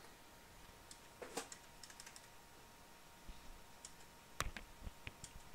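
Faint key presses on a PC keyboard, a few scattered clicks at a time, as arrow keys step through BIOS setup menus.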